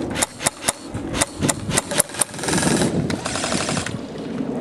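Airsoft guns firing: a string of single shots a few tenths of a second apart, then a long automatic burst of rapid shots.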